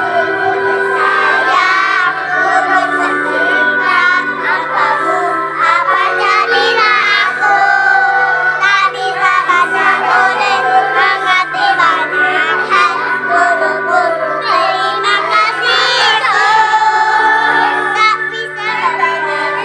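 A choir of young preschool children singing together over a musical accompaniment with steady held notes.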